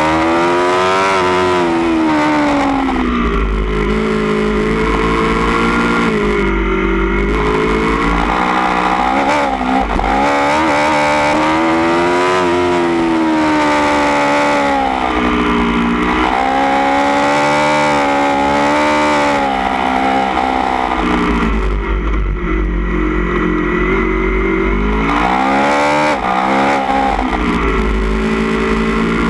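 2016 Aprilia Tuono V4 1100 Factory's V4 engine, breathing through a baffled Austin Racing GP1R silencer, heard from on board at track speed. The engine pitch climbs and drops repeatedly through the gears, with stretches of lower pitch between the climbs.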